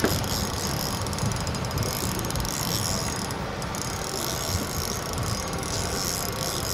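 Spinning reel's drag clicking rapidly and steadily as a hooked steelhead runs and pulls line out against it.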